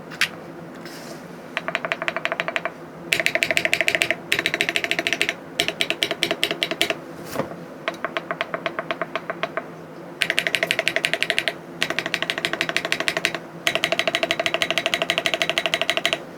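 Typing on a Polygon 7 mechanical keyboard fitted with HMX Serene Green linear switches (POM bottom housing, modified UPE stem): fast runs of keystroke clacks lasting a second or two each, separated by short pauses, with a longer pause about halfway through.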